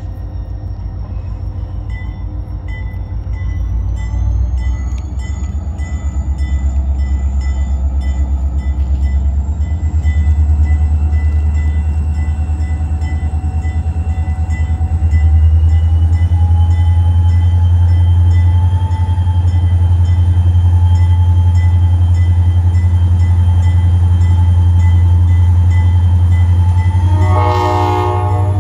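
Two EMD SD40-2W diesel locomotives running, their engines' deep rumble growing steadily louder, with a high whine that slowly rises in pitch. Near the end the locomotive horn sounds a short blast.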